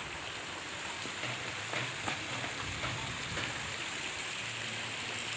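Water trickling steadily along a shallow channel beside a paved path, an even hiss with a few faint ticks.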